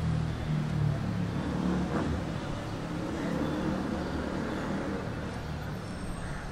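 Motor vehicle engine running with a steady low hum, amid street traffic noise.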